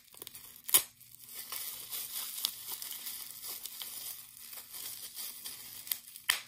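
Plastic bubble wrap crinkling and rustling as fingers pick at it to unwrap a small crystal, with a sharp crack just under a second in and another near the end.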